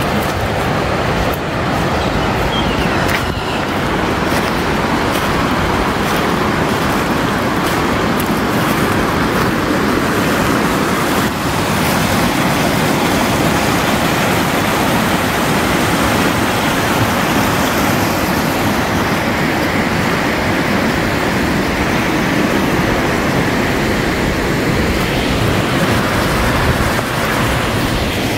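Steady, loud rushing of falling water from a waterfall, an even noise without breaks.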